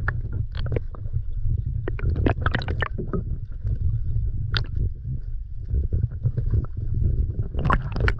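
Sea water heard through an underwater camera: a steady muffled low rumble, with scattered sharp clicks and crackles, a cluster of them about two to three seconds in and a louder one near the end.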